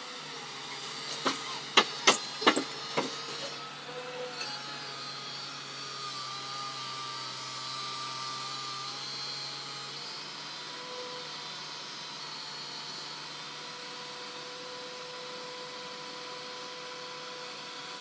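A machine running steadily, with a series of sharp knocks in the first few seconds.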